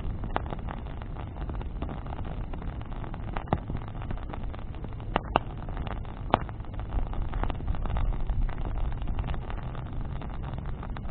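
Wood bonfire burning, with a handful of sharp crackles and pops from the wood over a steady low rumble.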